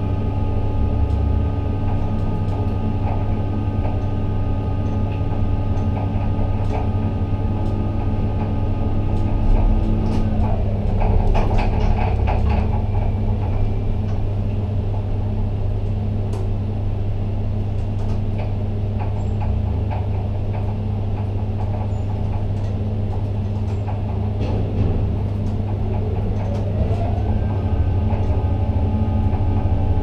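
Ship-to-shore container crane's electric drives heard from the operator's cab as the trolley and hoist move the spreader: a steady low hum with motor whine. The whine drops away about ten seconds in with a burst of clattering, then rises back in pitch near the end.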